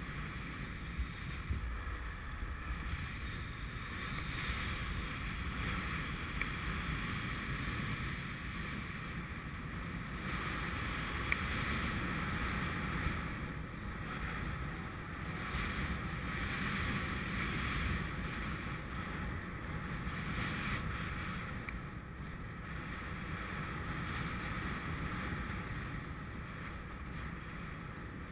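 Steady wind rushing over a GoPro's microphone during a paraglider flight, with a low rumble that swells and eases slightly.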